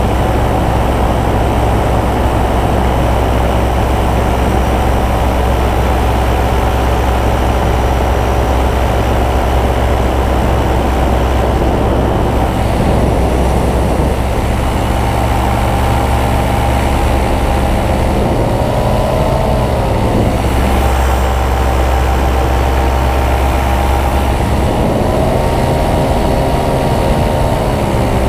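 Powered paraglider (paramotor) engine running steadily in flight, its pitch sliding down and back up about two-thirds of the way through and again near the end as the throttle is eased and reopened.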